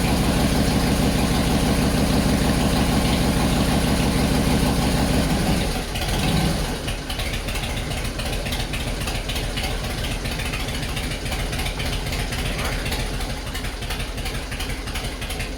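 Harley-Davidson V-twin engine of a 2001 Heritage Softail running on its first start after new Andrews 54 cams and a new cam plate assembly went in. It runs loud and steady for about six seconds, then drops to a quieter, less even idle, and cuts off at the very end.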